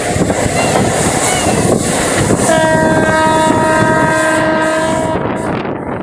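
Moving passenger train heard from the coach doorway, a loud steady rush of wheel and wind noise. About two and a half seconds in, a train horn sounds one steady multi-tone blast lasting nearly three seconds.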